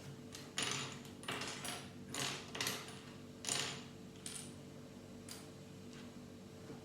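Loose plastic Lego pieces rattling and clinking in a handful of short bursts as a hand rummages through them looking for a brick.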